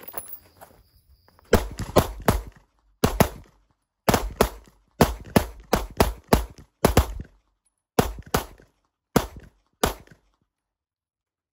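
Pistol shots from a Walther PDP F-series 9mm handgun. About twenty rapid shots are fired in quick strings with short pauses, starting about a second and a half in and stopping about ten seconds in as the magazines run empty.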